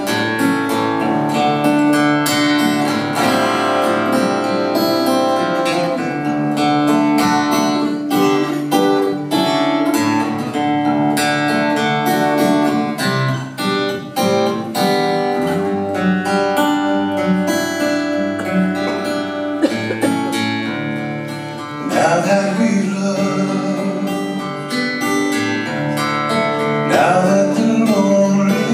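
Steel-string acoustic guitar, a Takamine cutaway, played solo with picked notes and strummed chords in a steady folk style. A man's voice comes in singing over the last several seconds.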